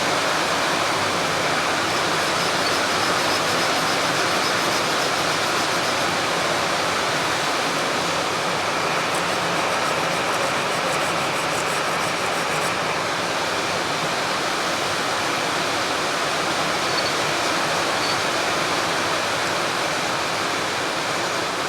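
Rain falling steadily on a metal roof, an even, constant hiss, heard from inside the building.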